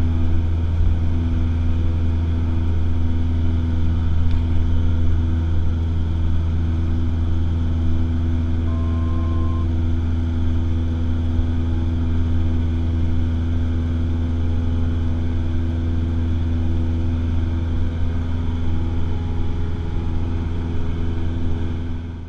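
Cessna 172SP's four-cylinder Lycoming engine and propeller running steadily at climb power just after takeoff, heard from inside the cabin as a loud, even drone. It fades out at the very end.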